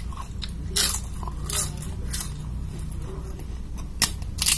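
Crisp papad (papadum) bitten and crunched close to the microphone, with chewing between the bites. There are about five sharp crunches, the loudest about a second in and two close together near the end.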